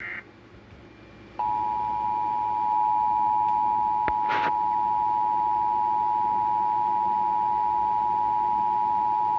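Emergency Alert System attention signal on broadcast radio: a steady two-tone alarm (853 and 960 Hz sounded together) that comes on about a second and a half in and holds unbroken, announcing a severe thunderstorm warning.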